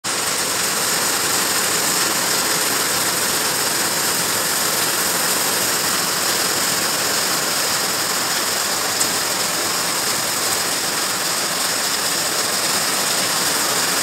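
Heavy rain mixed with hail pouring down, a steady dense hiss with one sharp tick about nine seconds in.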